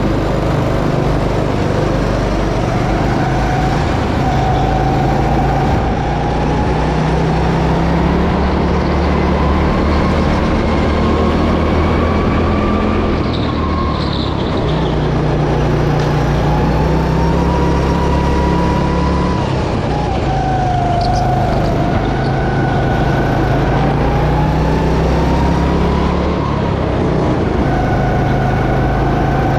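Go-kart engine heard from the driver's seat, running hard through a lap: its pitch climbs steadily and then drops sharply when the throttle comes off, several times over.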